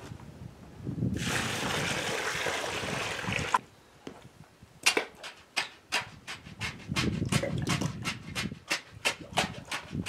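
Water poured from a five-gallon bucket into a post hole of concrete for about two seconds, stopping suddenly. Then an even run of sharp taps, about three a second, from a wooden stick jabbed down into the wet concrete around the post.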